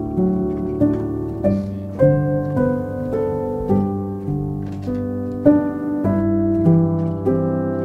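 Instrumental background music: gentle plucked notes over held chords, with a new note struck about every half second.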